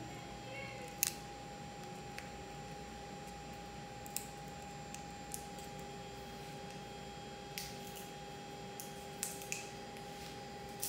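Small, scattered clicks and crinkles of a Schirmer tear test strip and its sterile packet being handled, the loudest about a second in, over a steady faint hum.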